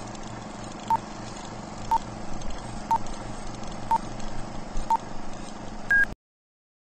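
Film-leader countdown sound effect: a short beep once a second, six times, over a steady hiss and hum, then a single higher beep about six seconds in, after which the sound cuts off suddenly.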